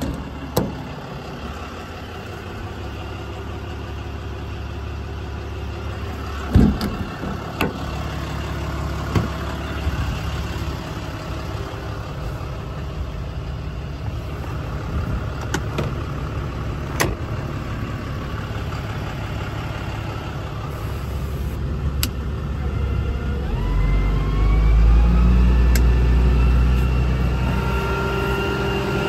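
Ram 5500's 6.7 Cummins diesel engine idling steadily, with a few latch clicks and a thud about six and a half seconds in. About 24 seconds in the engine gets louder and a rising whine comes in.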